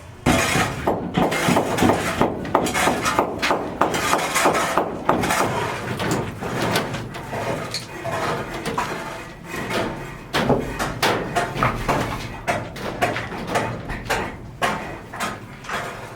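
Irregular knocking and clattering of construction work, with many sharp strikes close together and no steady rhythm.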